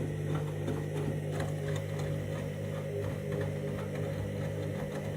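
Candy washing machine running its main wash on a synthetics cycle: a steady motor hum as the drum turns, with faint irregular ticks.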